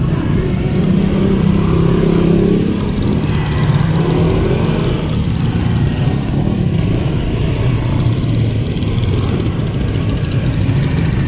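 Slow street traffic heard from just behind: small motorcycle engines running, a steady low drone whose pitch shifts during the first few seconds.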